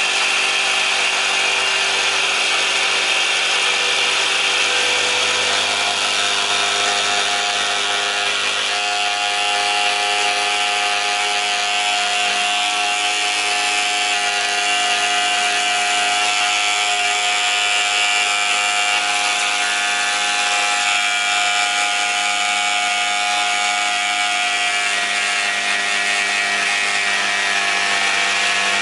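A power machine running steadily: a continuous whine over a rushing noise, with a clearer, higher tone settling in about nine seconds in.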